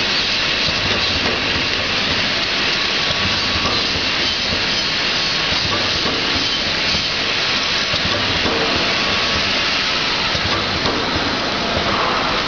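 Vial filling and capping machine running: a steady mechanical hiss with a fast, dense clatter of small clicks.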